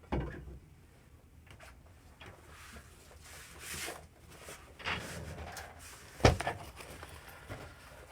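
Gear being handled, likely a shoulder bag and a small pouch: faint rustling and a few soft knocks, with one sharp click about six seconds in.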